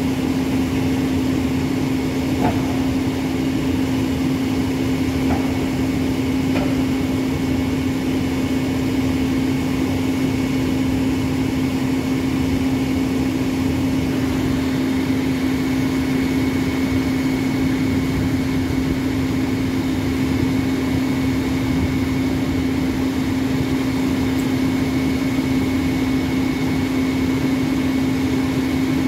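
Heavy-haulage truck's diesel engine running at a steady speed with a constant hum, driving the winch that hauls a Class 47 locomotive onto the low-loader trailer. A few faint clicks in the first several seconds.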